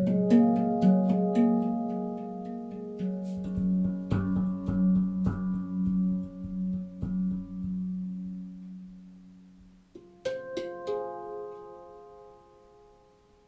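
Manik handpan played with the fingertips: struck notes ring and overlap over a sustained low note, then die away almost to nothing. A fresh cluster of strikes about ten seconds in rings out and fades.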